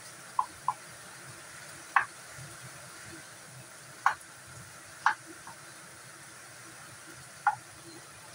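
Kitchen knife cutting potatoes on a wooden chopping board: about seven separate short, sharp knocks at uneven intervals as the blade goes through and strikes the board. A faint steady hiss lies underneath.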